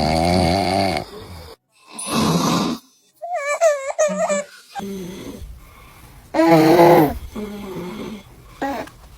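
A man snoring, a run of separate loud snores each under a second long. Between them comes a baby's high, warbling vocalizing about three seconds in.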